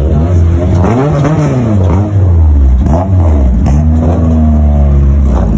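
A Honda hatchback's engine being revved, its pitch climbing and dropping back three times, then held steady at higher revs for about a second near the end.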